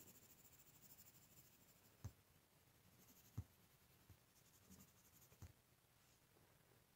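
Faint pen strokes scratching on paper, in two spells, with a few soft taps of the pen or hand on the drawing surface.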